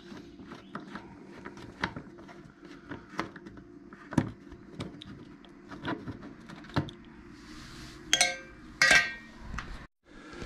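Small, irregular clicks and taps of a hand hex-bit driver and metal screws being worked out of a motorcycle's plastic side panel. Near the end come two louder metallic clatters with a brief ring.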